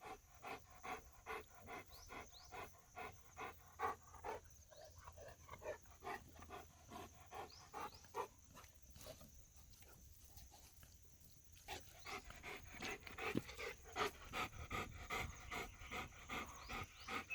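A dog panting in a quick, even rhythm, faint, breaking off for a couple of seconds in the middle before going on.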